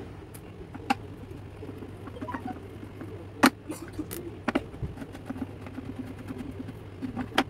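Scattered plastic clicks and knocks from a Honda CB150R headlight housing being handled and its rear cover opened, the sharpest knock about three and a half seconds in.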